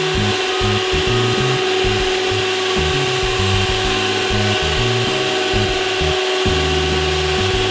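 Black & Decker stand mixer running steadily at one speed with a constant electric-motor whine, beating cake batter in its bowl.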